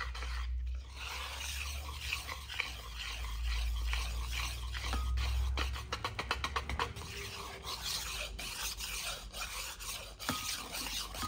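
Wire balloon whisk beating thick cake batter by hand in a bowl: a rapid run of scraping strokes and clicks as the wires strike the bowl.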